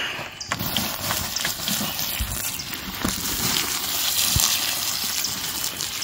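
Water pouring from a jug in a steady stream onto campfire ashes, dousing the embers still glowing under the ash to put the fire out.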